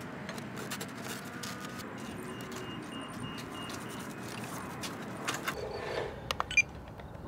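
Steady low outdoor background noise with a few small sharp clicks and taps about five to six and a half seconds in, from hands handling small gear: a camera strapped to the plane's tail and the radio transmitter picked up.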